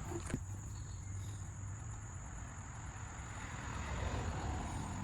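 Steady chirring of crickets with a low steady hum beneath it, and a brief click just after the start.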